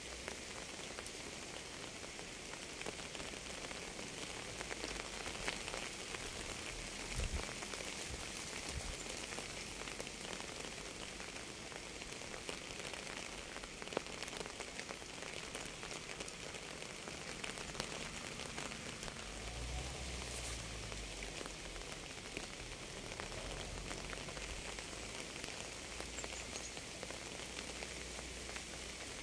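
Steady rain falling on a surface: an even hiss with scattered drops ticking.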